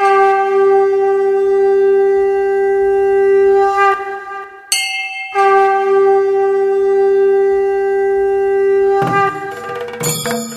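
Conch shell blown in two long, steady blasts on one pitch, each about four seconds, with a short break between. Percussion and bell-like ringing start near the end.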